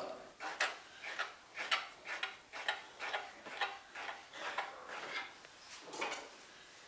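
Kitchen knife chopping fresh pasta dough into small pieces on a wooden board: a steady run of light knocks, about two a second.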